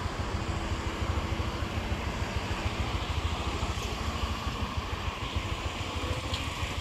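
Road traffic: cars driving past along a street, a steady low noise.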